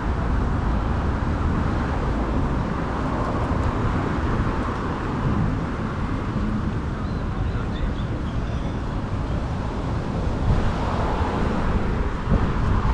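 Steady street ambience of car traffic passing along a busy multi-lane avenue, with a low rumble.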